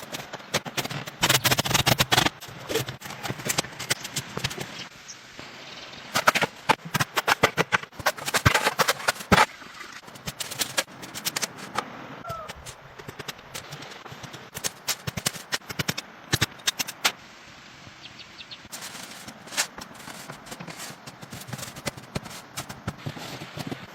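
Irregular flurries of sharp knocks and taps, several a second, with short pauses between the runs.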